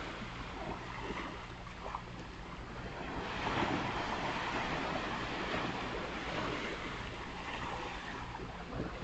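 Ocean surf washing onto a beach: continuous rushing water that swells loudest about three and a half seconds in as a wave breaks.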